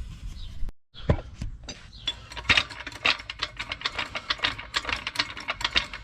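Socket ratchet clicking rapidly in runs, several clicks a second, as the shock absorber's upper mounting bolts are worked loose. There is a short break in the sound just under a second in.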